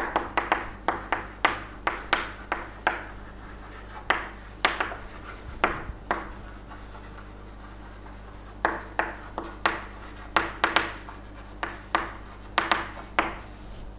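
Handwriting: short, quick scratching strokes in irregular runs, with a pause of a second or so in the middle.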